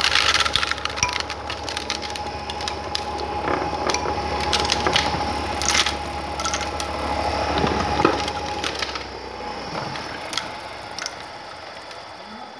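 Engine-driven homemade wooden corn sheller running, with dry cobs and kernels clattering and cracking against its nail-studded wooden drum and box. The low engine hum and the clatter die away over the last few seconds.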